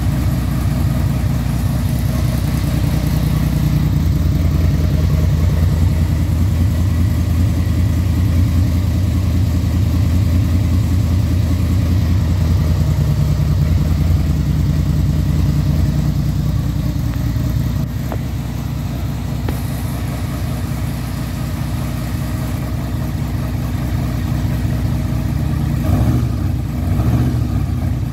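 1996 Yamaha V-Max's V4 engine idling through a Marving aftermarket exhaust during a choke-on cold-start warm-up, running a little rough until warm. The sound steps down slightly about two-thirds of the way through, and it swells briefly a couple of times near the end.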